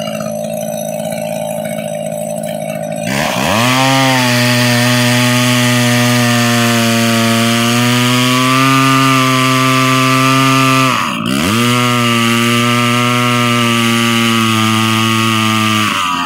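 McCulloch Pro Mac 850 chainsaw's two-stroke engine running under load as the bar cuts through a 26-inch hickory log. The engine note dips and picks back up about three seconds in, holds steady, dips again briefly around eleven seconds, and falls off near the end.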